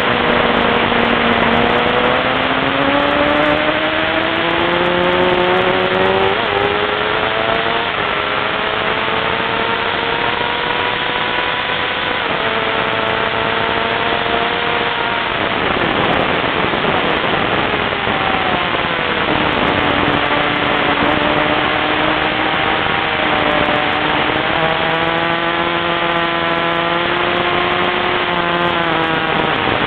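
Motorcycle engine at track speed heard from on the bike, under heavy wind rush on the microphone. The engine note climbs steadily for about twelve seconds, drops at an upshift, fades out for a few seconds off the throttle through a corner, then comes back and pulls again.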